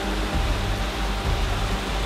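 Steady rush of a muddy stream swollen by a flash flood, with background music of held notes underneath.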